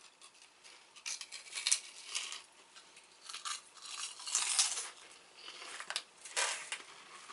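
Crisp monaka wafer being bitten and chewed, a run of irregular dry crunches.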